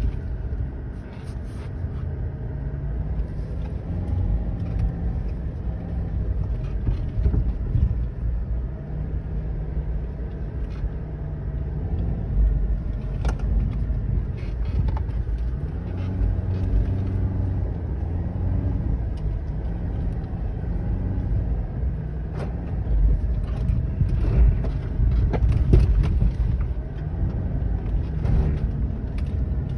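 Subaru XV with its boxer four-cylinder engine driving on sand: a steady low rumble with the engine note rising and falling as the revs change, and a few sharp knocks.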